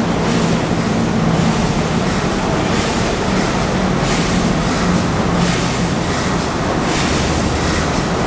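B&W 2000 eight-cylinder double-acting two-stroke opposed-piston diesel engine running steadily: a loud, even machine noise with a low drone underneath.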